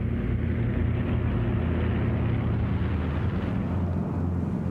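Martin Mars flying boat's four Wright R-3350 radial piston engines and propellers making a steady, deep drone as it flies low.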